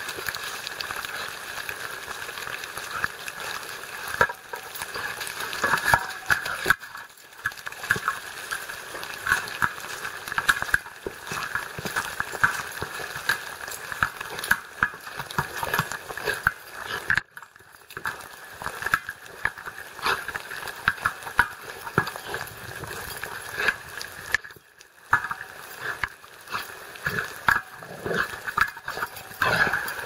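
A dog playing with a ball on wet grass and leaves: irregular scuffs, knocks and the dog's own noises over a steady hiss. The sound goes quiet briefly three times.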